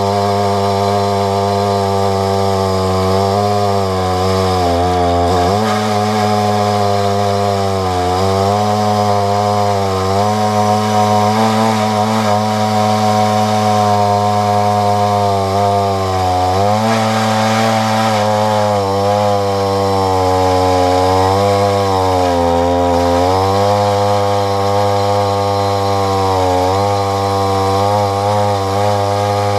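Husqvarna 372XP two-stroke chainsaw on a 28-inch bar running at full throttle as it rips a walnut log lengthwise in a chainsaw mill. The engine note dips briefly about six times as it bogs under the load of the cut and picks back up.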